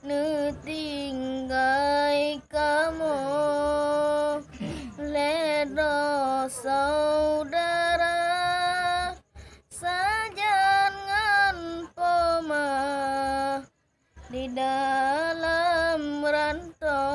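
A boy singing solo in a high voice. He holds long notes with wavering, ornamented turns and breaks off twice for breath.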